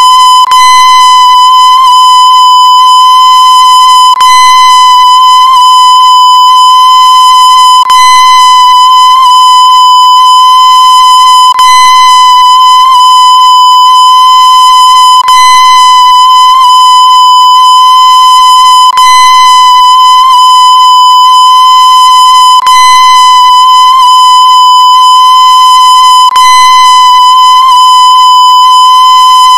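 A loud, steady, high-pitched electronic tone held without a break, like an alert or test tone, with a short click about every four seconds.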